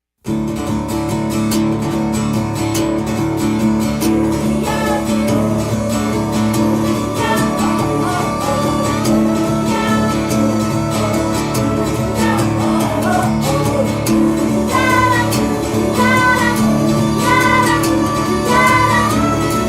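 Song with acoustic guitar and singing, cutting in suddenly right after a brief silence.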